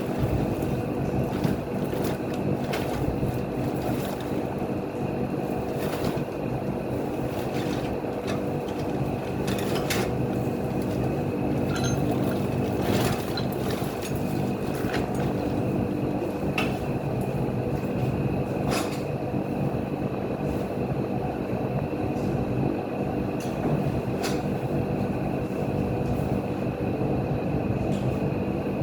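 A machine running steadily with a continuous droning hum, with sharp clicks and knocks every second or two.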